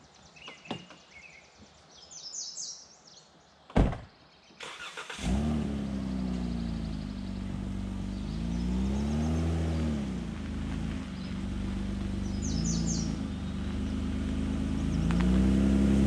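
A van door shuts with a single bang about four seconds in. About a second later the Ram ProMaster van's engine starts and runs, its pitch rising and falling as it pulls off, and it grows louder as the van drives toward the microphone near the end. Birds chirp in the quiet opening seconds.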